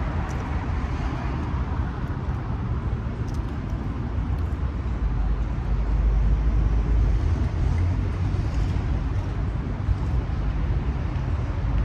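Street traffic noise: a steady low rumble of road traffic that swells between about five and eight seconds in, as of a vehicle passing.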